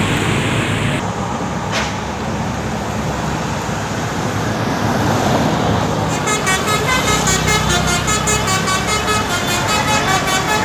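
Vehicle and street noise, then, about six seconds in, a multi-tone telolet bus horn starts up, playing a quick, pulsing tune of several notes.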